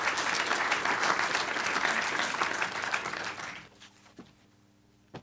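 Audience applauding, dying away about three and a half seconds in.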